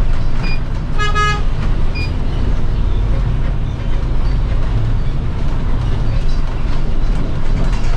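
City bus running, with a steady low engine and road rumble. A short vehicle horn toot comes about a second in, with two brief high beeps just before and after it.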